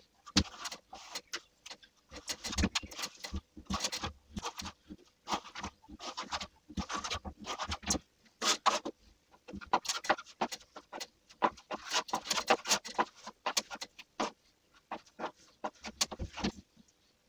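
Steel plastering trowel spreading a thin skim coat of Thistle Multi Finish plaster across a wall, in many short, irregular scraping strokes.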